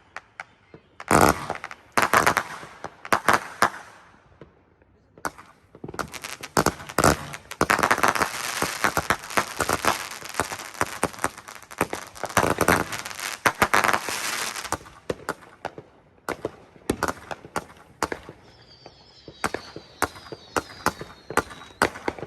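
Winda Fireworks Patriotic Sky Buster, a 126-shot 350 g cake, firing: sharp reports in quick succession, running into a dense, nearly continuous volley from about six to fifteen seconds in, then scattered single bangs. A faint high tone sounds in the last few seconds.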